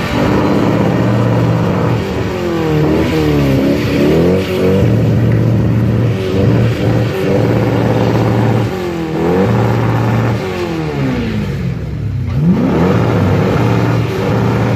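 Car engine revving hard as the car drifts in circles, its pitch sweeping up and down again and again and held steady at high revs for stretches. It drops briefly about three-quarters of the way through, then climbs again.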